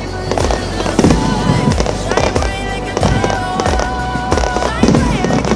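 Fireworks display: aerial shells bursting in quick, irregular succession with sharp bangs and crackle, over music with a melody.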